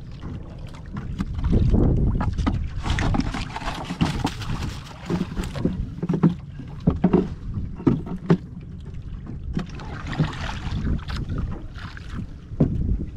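Wind buffeting the microphone over water, with splashing and scattered knocks throughout.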